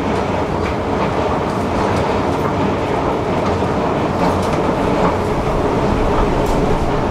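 Escalator running, giving a steady mechanical noise from its moving steps and drive that does not change.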